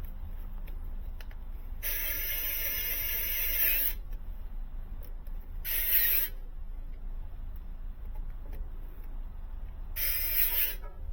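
A small electric power tool, such as a cordless drill-driver, running in three short bursts: a longer run of about two seconds, then two brief ones, over a steady low hum.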